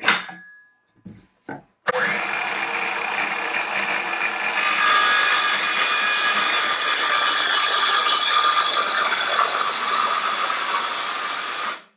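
A sharp knock, then a cordless circular saw starts and runs at speed. A couple of seconds later the blade bites into a wooden board and cuts along a track guide, the sound turning brighter. It stops abruptly near the end: a short test cut for lining up the guide's sight with the blade.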